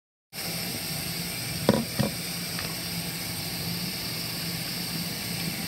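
Steady hiss of a faucet running water, with two sharp clicks close together under two seconds in.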